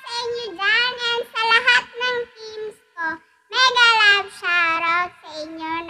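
A woman singing alone into a condenser microphone, in short phrases of held, slightly wavering notes with a brief pause about halfway through.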